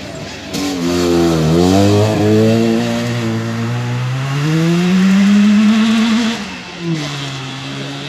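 Rally Trabant's two-cylinder two-stroke engine at high revs as the car takes a gravel corner. The pitch dips, then climbs steadily to a peak, cuts off sharply about six seconds in, and picks up again at a steadier, lower pitch as the car pulls away.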